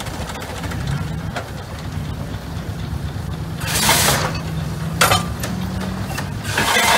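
Marion steam shovel at work, its machinery running with a steady low hum, broken by short bursts of hissing about four seconds in, about five seconds in and again near the end.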